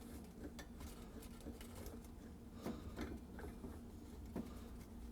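Faint, scattered light metallic clicks and taps as a CO2 regulator's coupler nut is threaded onto the valve of a fresh CO2 cylinder.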